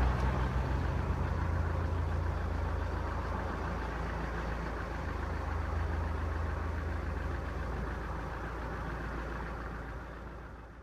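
A vehicle engine idling with a steady low rumble, fading out near the end.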